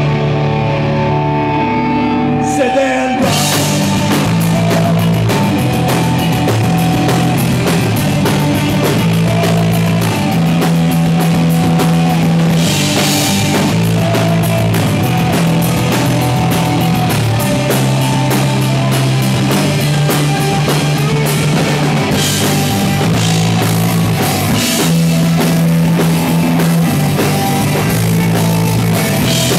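Live rock band playing loud, with electric guitars, bass and drum kit. It opens on a held, ringing guitar chord, and about three seconds in the drums and the full band crash in and drive on.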